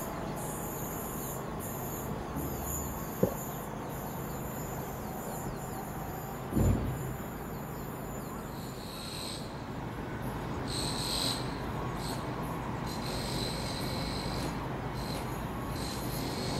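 Quiet trackside ambience after a train has gone: a thin high-pitched whine fades out about halfway, then short high chirps come and go, insect-like. A short tap a few seconds in and a louder dull thump just before the middle.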